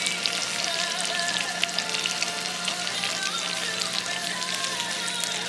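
Tuna steaks sizzling and crackling in a hot pan just out of the oven, with one side cooked. Music and a low steady hum can be heard behind it.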